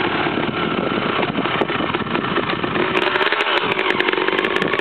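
Dirt bike engine running as the bike descends a steep, rough hillside. The engine note dips and rises again about three seconds in.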